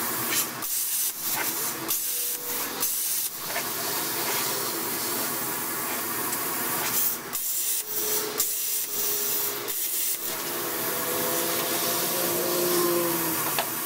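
Longevity Forcecut 40D plasma cutter running with a steady hiss of air and arc, broken by several brief drop-outs in the first ten seconds.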